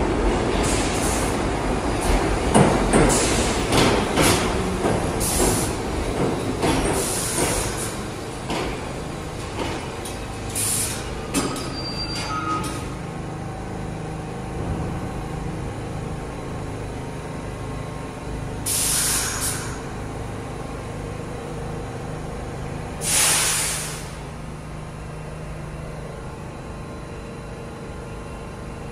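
New York subway train slowing over the rail joints with a heavy clatter that dies away, with a few short brake squeals. The stopped train then hums steadily while air hisses out twice.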